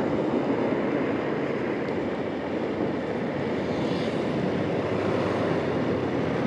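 Bajaj Pulsar NS200 single-cylinder motorcycle engine running steadily while riding at moderate road speed, mixed with wind and road noise.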